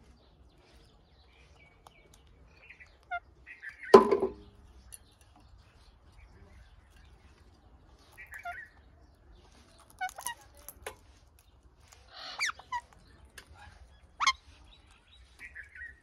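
Parakeets giving short, scattered squawks and chirps with pauses between them, and one loud harsh burst about four seconds in.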